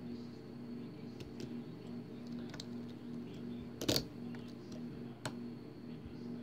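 Small metallic clicks and ticks of a hook pick working the pins inside a Winkhaus euro cylinder lock: a few scattered clicks, with a louder click about four seconds in.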